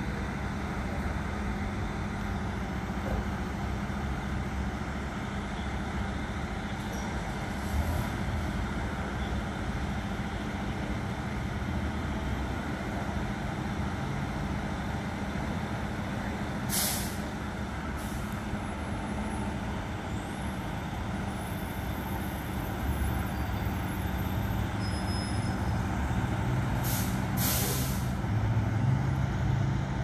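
Fire truck's diesel engine running at idle, with short hisses of air-brake release twice about two-thirds of the way through and twice more near the end; the low running sound grows louder over the last several seconds.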